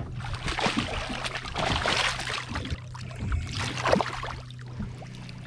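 Water splashing and sloshing against a boat's hull as a red grouper flaps at the surface and is grabbed by hand and lifted out, with a steady low hum underneath.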